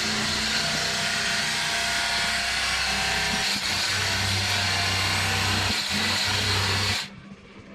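Electric knife motor running steadily as it slices the wax cappings off a honey frame, then stopping abruptly about seven seconds in.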